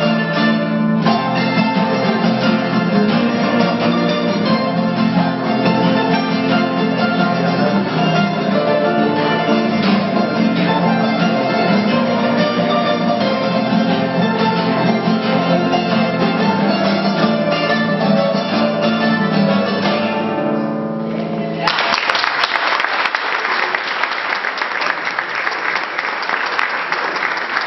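Andean folk trio of charango, acoustic guitar and quena playing a tune, which ends with a final chord about three-quarters of the way through. The audience then applauds.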